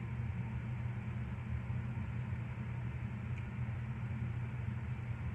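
Steady low hum with a faint hiss, unchanging, with no distinct sounds standing out.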